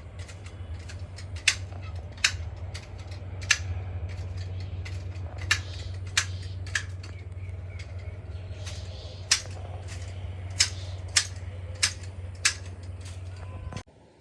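Garden shears snipping shrub branches, about a dozen sharp clicks at irregular intervals. A steady low hum runs underneath and cuts out near the end.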